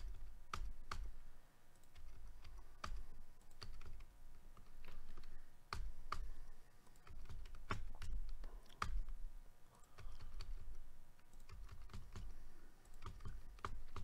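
Irregular clicking and tapping on a computer keyboard and mouse, about one or two sharp clicks a second over low dull thumps on the desk, as a list is randomized over and over.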